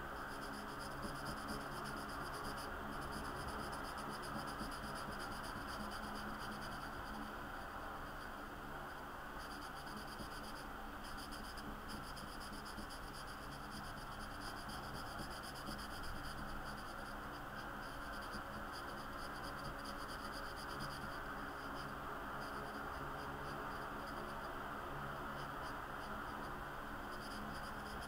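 Black felt-tip marker rubbing and scratching steadily on sketchbook paper as a large area is coloured in, over a steady background hiss and low hum.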